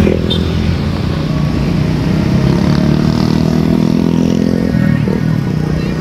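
Motorcycles passing close by on the road, their small engines running with a steady drone that shifts about three-quarters of the way through.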